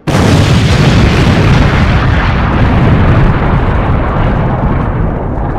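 Outro sound effect of an explosion-like blast: it starts suddenly and loudly, then carries on as a steady deep rumble.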